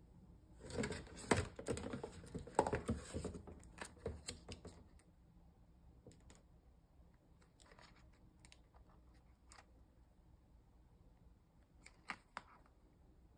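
Crinkling and rustling of toy packaging handled on a tabletop: a few seconds of dense crackling, then scattered light taps and clicks as a small cardboard box is turned in the hands.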